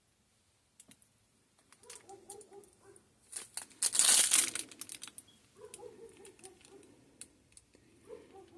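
Plastic piping bag crinkling and rustling in the hands as it is squeezed to pipe soap batter, in scattered bursts, loudest about four seconds in.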